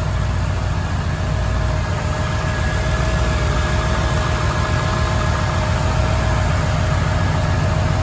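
LS1 V8 engine swapped into a Nissan 300ZX idling steadily, with a constant whine over the running, while it is checked for oil leaks after a new oil pan.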